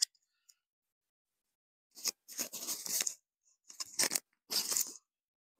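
Clothing and bedding rustling and scraping in three short bursts, with a click or two, as hands pull a person in a padded jacket into position on a cloth-covered treatment table.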